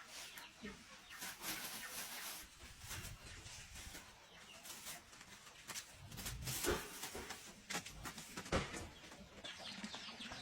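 Chickens clucking while being fed, with scattered clicks and knocks; two louder knocks come about two-thirds of the way through.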